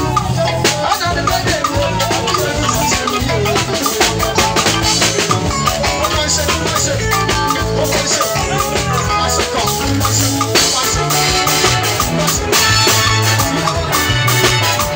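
Loud, upbeat dance music with a steady beat, a strong bass line and percussion.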